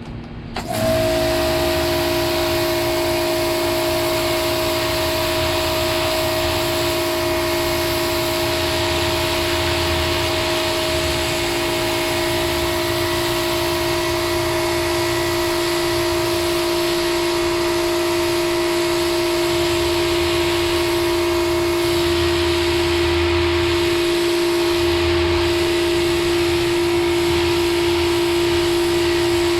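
Ryobi 2000 psi electric pressure washer starting up about a second in, then running steadily: a constant hum with the hiss of the high-pressure water spray.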